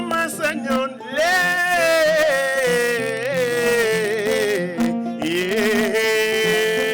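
A song sung in Wolof over a steady plucked-string accompaniment: the voice sings a short word, then holds two long notes that slide and waver, the first sinking slowly in pitch, the second starting about five seconds in.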